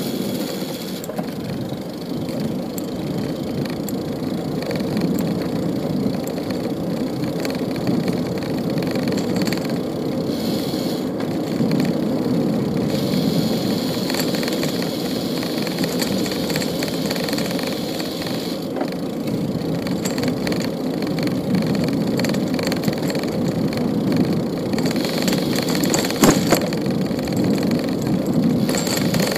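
Steady road noise of a bicycle ride on a city street, a continuous rumble with car traffic around it. A sharp knock near the end.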